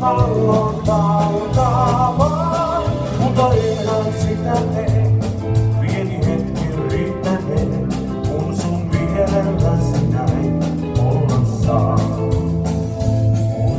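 Live band playing amplified through a PA: a singer over a bass line and a steady drum beat, the singing strongest in the first few seconds.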